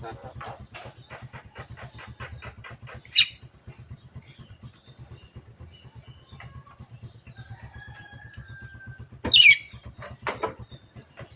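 Javan myna calling: a loud, sharp call about three seconds in, a thin held whistle later, and another loud, harsh call near the end, over a rapid even ticking.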